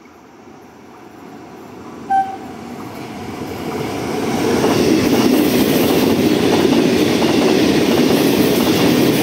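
Trenitalia passenger train approaching and running past along the platform: wheel and coach rumble growing louder, then loud and steady as the coaches go by. A short horn toot about two seconds in.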